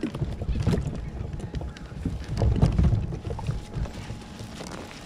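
Irregular knocks and thumps against a kayak hull, with a few sharp clicks, loudest around the middle.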